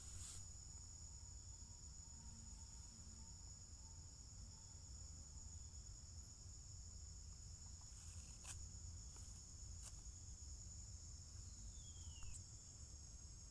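Faint, steady high-pitched drone of insects, with a few soft clicks in the second half and a brief falling whistle near the end.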